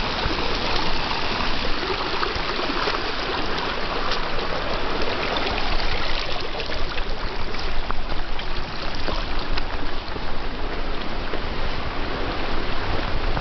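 A shallow stream rushing and splashing over rocks close to the microphone: a steady, loud hiss of running water.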